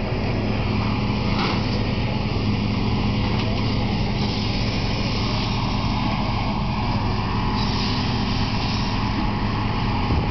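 John Deere 2454D forestry machine's diesel engine running steadily under load. There is a short crack about a second and a half in, and a brief burst of brighter noise around eight seconds.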